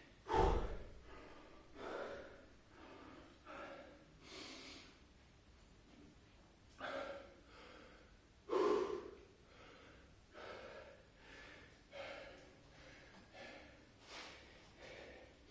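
A man breathing hard and gasping, catching his breath after a set of burpees, with a loud breath about every second. A dull thump just at the start is the loudest sound.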